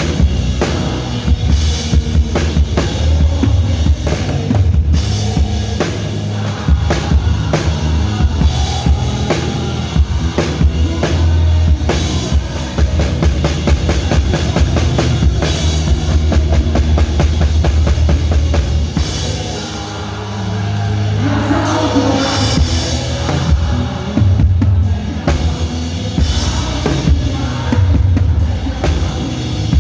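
Live band music with the drum kit up front: kick drum and snare keeping a steady beat under heavy bass. It eases off briefly about twenty seconds in, then builds back up.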